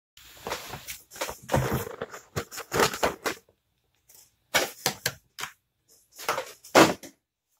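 Stiff clear plastic packaging crinkling and clicking in irregular bursts as it is handled, with short pauses between.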